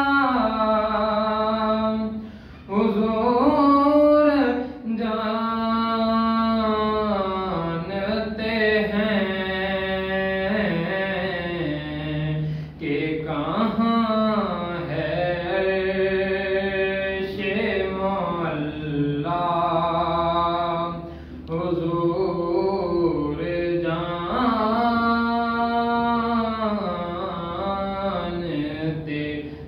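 A young man's solo voice reciting a naat, an Islamic devotional poem, unaccompanied into a microphone. He sings long held notes that bend and glide in ornamented runs, with brief pauses for breath.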